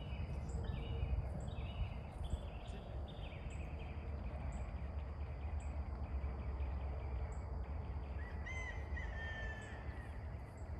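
Birds calling outdoors. One gives a quick run of repeated calls, about two a second, over the first few seconds, and a clearer whistled phrase comes near the end. A faint high chirp repeats about once a second throughout, over a steady low rumble.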